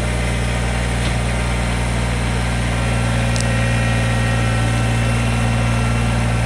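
Kubota BX20 sub-compact tractor's three-cylinder diesel engine running steadily at a constant speed.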